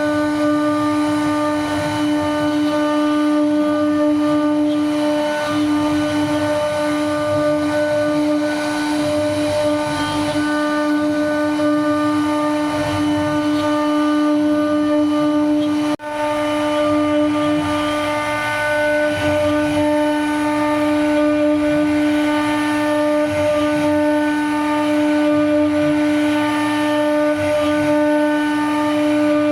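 CNC router spindle running at a steady high speed with a constant whine while its bit cuts into wood, with rougher cutting noise underneath. The sound drops out briefly about halfway through.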